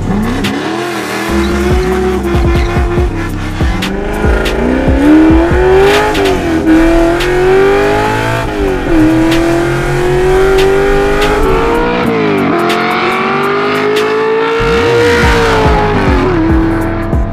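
Shelby GT350 Mustang's V8 accelerating hard through the gears. The exhaust note climbs steadily, then drops sharply at each upshift, four times over.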